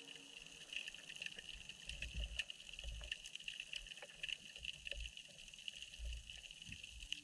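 Faint underwater ambience heard through a GoPro's waterproof housing in shallow surf-churned water: a steady high hiss with scattered small clicks, and a few dull low thumps.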